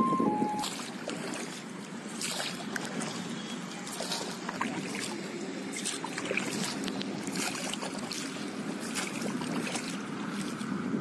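A boat moving through water: a steady wash of water against the hull, with irregular short splashes.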